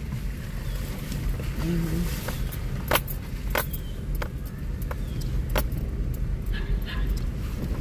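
Car cabin with a steady low engine and road rumble as the vehicle rolls slowly along a rough, washed-out dirt road, with scattered sharp clicks and rattles.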